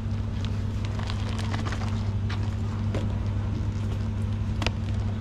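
Steady low machine hum, with scattered light clicks and crackles from clear plastic popcorn tubs being handled.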